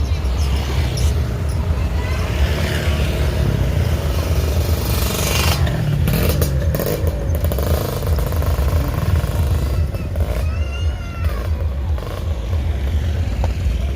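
Bus engine and road noise rumbling steadily, with a burst of rushing noise about six seconds in and a short wavering high tone about ten seconds in.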